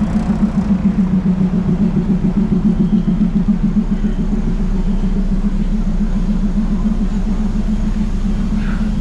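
Diesel railcar engine idling at the station with a steady low hum and a quick, even throb.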